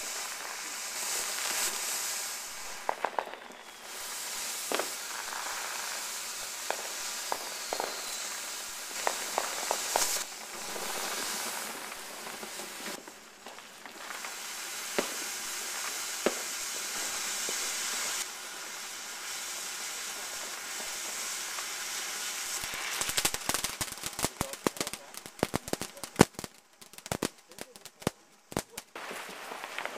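Fireworks sizzling and crackling, with scattered sharp pops. Near the end a fast, irregular string of firecracker bangs goes off.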